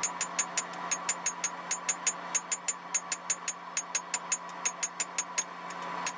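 Hand hammer striking red-hot scrap steel on an anvil in rapid, even blows, about four or five a second, each with a short metallic ring: an axe head being forged to shape.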